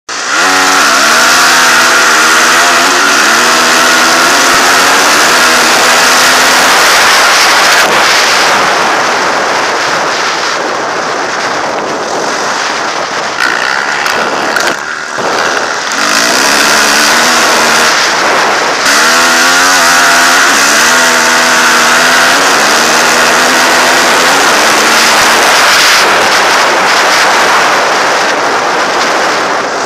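Dirt bike engine accelerating hard through the gears, its pitch climbing and then dropping at each shift, with strong wind noise on the microphone. It pulls through the gears at the start, eases off in the middle, then accelerates through the gears again.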